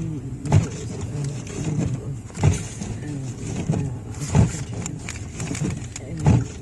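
Inside a car driving slowly on snowy roads: steady engine and road rumble, with a short thump about every two seconds.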